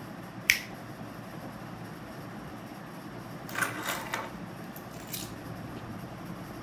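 A wall light switch clicks once, sharply, about half a second in. A little past halfway comes a short run of metallic clicks and rattles from the front door's handle and lock, then another click about five seconds in, over a steady low room hum.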